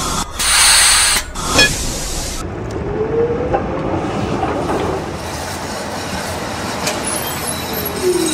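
Electric tram car running on rails: a loud burst of air hiss near the start, then a steady rolling rumble with a brief rising wheel squeal around the middle.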